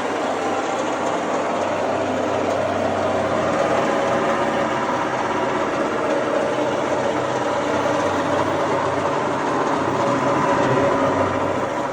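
Briggs & Stratton 5 hp single-cylinder engine running a wood chipper steadily, its loudness swelling a little a few times and easing off at the very end.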